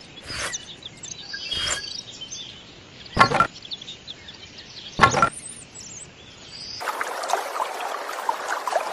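Four separate knocks, about one every second and a half, over an outdoor background with faint bird chirps. From about seven seconds in, a denser, busier noise with scattered ticks takes over.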